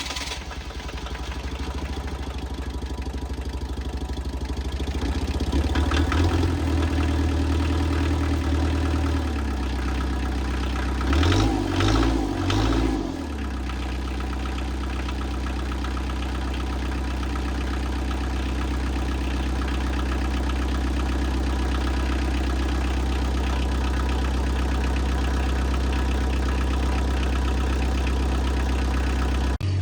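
Bobcat 743B skid steer's diesel engine running: it is revved up for a few seconds, given three quick blips of the throttle near the middle, then settles to a steady idle.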